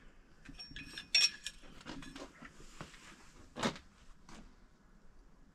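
Small clicks and knocks of parts being handled by hand, with one sharp metallic clink about a second in and a duller knock a little past halfway.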